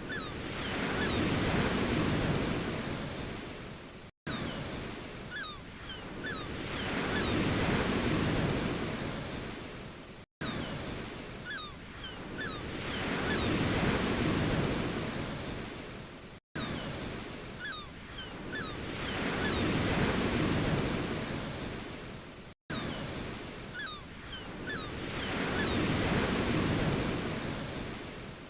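Ocean waves washing onto a shore, each wave swelling and then fading over about six seconds. The same short recording is looped, with a brief dropout at each join about every six seconds.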